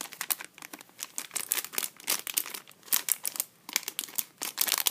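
Crinkling of a Littlest Pet Shop blind-bag packet being handled and worked open, in quick irregular crackles that grow busier and louder near the end.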